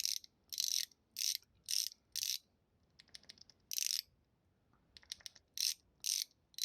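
Brushed zirconium mechanical fidget slider being slid back and forth, its spring-and-ball detents snapping the plates into place. About ten short, sharp clicks come in an uneven rhythm, with a faint rattle about three seconds in.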